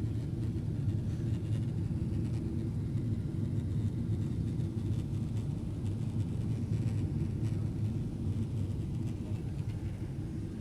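Steady low cabin rumble of a Boeing 767-400 airliner in flight: engine and airflow noise heard from inside the passenger cabin.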